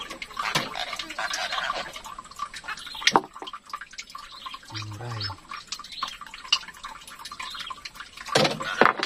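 Water splashing and dripping with irregular knocks and clicks, the sharpest about three seconds in and near the end. A short low grunt comes about five seconds in.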